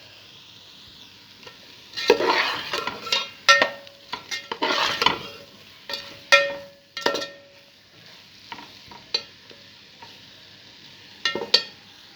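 A spoon stirring and scraping onions and green chillies frying in hot oil in a pan, over a steady sizzle. A run of scrapes and knocks comes about two to seven seconds in, and a few more near the end.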